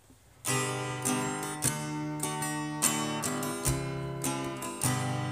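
Acoustic guitar strumming chords as the instrumental intro to a gospel song, starting about half a second in after near silence.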